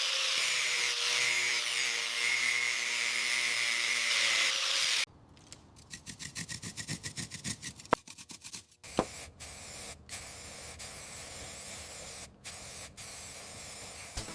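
Restoration work on a BMX bike: a steady hissing tool noise for about five seconds, then quieter rhythmic rubbing strokes, about four a second, with a few sharp clicks.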